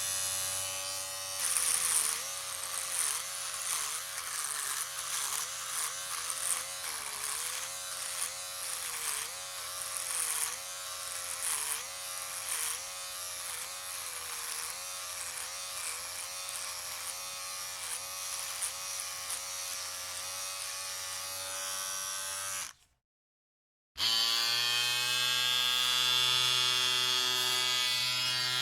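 Electric shaver running with a steady motor buzz whose pitch dips briefly over and over, one or two times a second, through the first half. It cuts off a little over 22 seconds in, is silent for about a second, then starts again with a steadier buzz.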